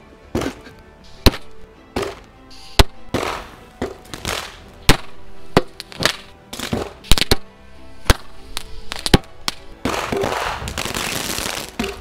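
A 16-shot consumer firework cake firing shot after shot: a rapid series of sharp bangs, roughly one or two a second, each with a hissing whoosh, and a longer hiss near the end.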